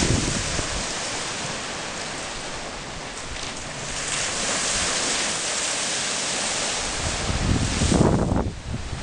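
Small sea waves washing onto the beach with a steady hiss of surf, along with wind on the microphone. Near the end a louder, gusty low rumble of wind buffeting the microphone comes in.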